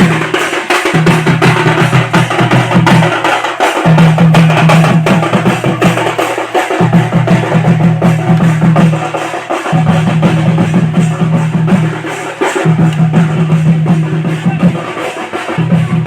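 Loud drum-heavy music: fast, dense drumming over a low bass note that comes in blocks of about two seconds with short breaks between them.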